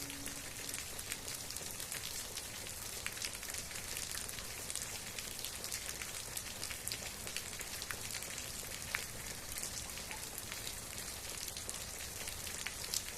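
Steady rain falling, an even hiss with many separate drops pattering sharply on a surface.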